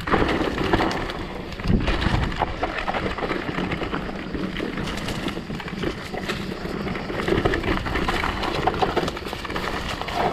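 Mountain bike being ridden over rough trail: wind rushing on the microphone, with constant rattling and knocking from tyres and frame over the ground and a heavier thump about two seconds in.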